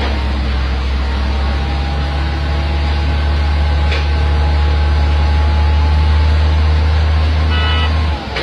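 Heavy diesel engine running steadily, with a faint whine on top, while a tipper semi-trailer's bed lifts to feed asphalt into a paver. The drone cuts off suddenly about 8 seconds in.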